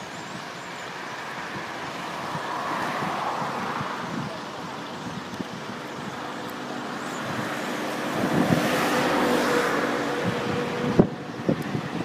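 Road traffic passing: tyre and engine noise swells up twice, the second time louder with a steady engine hum. Near the end wind buffets the microphone in a few low knocks.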